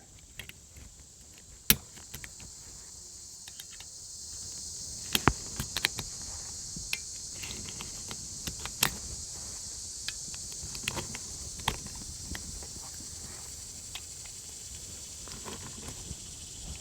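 Sharp metallic clicks, one at a time and a few seconds apart, of .45 ACP cartridges being pressed into a 1911 pistol magazine. A steady high hiss rises underneath from about four seconds in.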